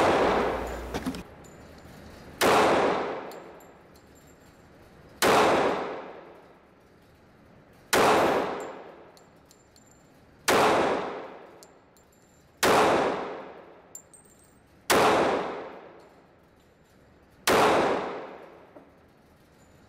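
Colt Commander 1911 pistol fired in slow, deliberate shots, about eight of them two to three seconds apart. Each report echoes and dies away over a second or more down the indoor range.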